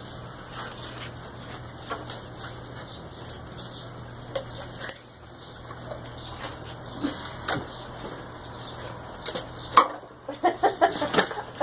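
Knife work and handling on a large catfish on a cleaning board: scattered soft scrapes and clicks over a steady low hum. About ten seconds in there is a loud knock, then a quick run of short pitched sounds.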